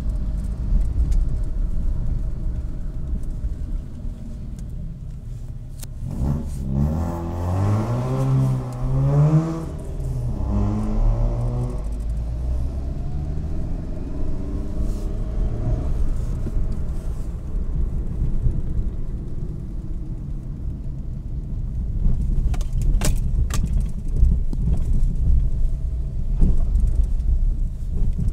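Car driving over a rough road, heard from inside the cabin as a steady low rumble. About six seconds in, an engine revs up, rising in pitch twice with a short break between, like a pull through a gear change. Near the end come a few sharp knocks or rattles.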